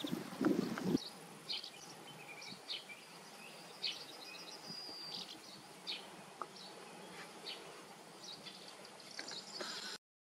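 Meadow ambience with scattered short, high chirps. Wind buffets the microphone in the first second, and the sound cuts off suddenly near the end.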